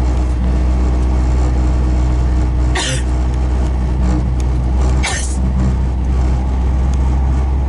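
Two sharp sneezes about two seconds apart, over the steady low rumble of a car cabin on the move.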